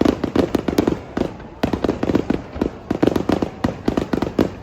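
Fireworks finale: a rapid, irregular barrage of aerial shell bursts, several bangs a second with echo between them and a brief lull a little over a second in.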